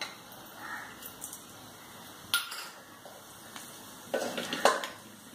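Metal-on-metal clinks from a small steel bowl against an aluminium kadai as seeds are tipped into a little oil. There is one sharp clink about two seconds in and a short run of clattering knocks near the end.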